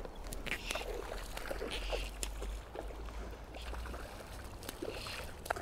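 Stream water splashing and trickling, with scattered small clicks and a low rumble that eases after about three seconds.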